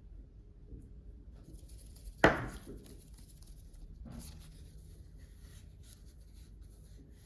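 A single sharp clatter with a brief ringing decay about two seconds in, then a softer knock and light rustling.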